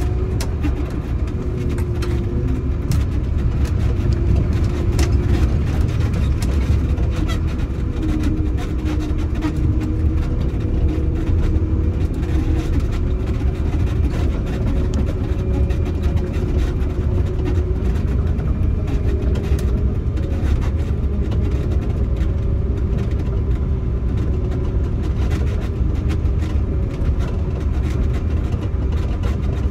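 Prinoth Bison snowcat's diesel engine running steadily under load as the front blade pushes snow, heard from inside the cab: a constant low rumble with a held engine tone and small rattles.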